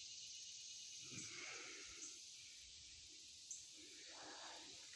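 Faint outdoor ambience: a steady high-pitched hiss of insects, with a few soft low rustles.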